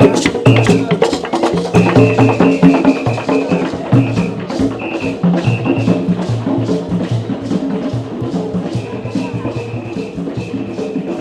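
Upbeat music with shaker and wood-block style percussion keeping a steady beat under sustained melody notes.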